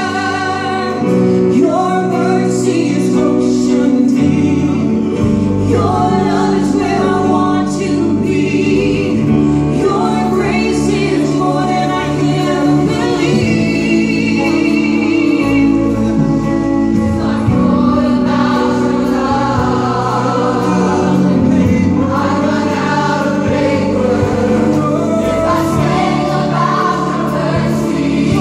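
Church choir singing a gospel worship song, led by a man and a woman on handheld microphones, over keyboard accompaniment.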